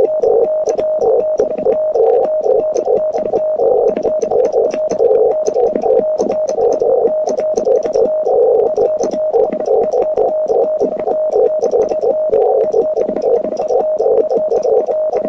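Morse code being sent on a Vibroplex Lightning Bug semi-automatic (bug) key: a steady-pitched CW tone beeping in rapid dots and dashes, with the key's contacts clicking, over a hiss of shortwave receiver noise.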